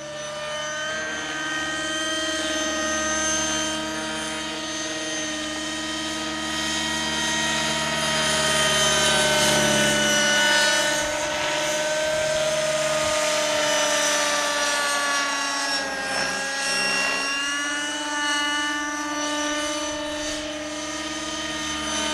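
Align T-Rex 600N nitro RC helicopter in aerobatic flight: its OS .50 Hyper glow engine with MP5 muffler whines steadily along with the rotor. The pitch rises and falls with the manoeuvres, sagging once about two-thirds of the way through and then climbing back.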